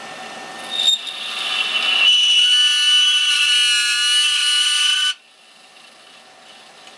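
Dry ice pressed onto the bare metal lid of a Pentium 4 CPU, squealing as it sublimates against the warm metal: a loud racket of several shrill, wavering tones that swells over the first two seconds and cuts off suddenly about five seconds in. A sharp click about a second in.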